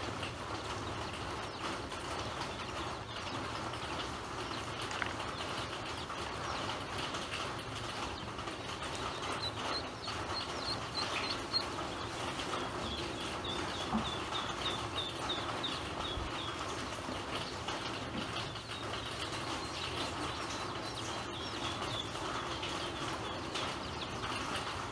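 Ducklings feeding in a plastic basin: a steady patter of small taps as their bills peck grain off the plastic. Runs of quick, high peeps come in about ten seconds in and again near the end.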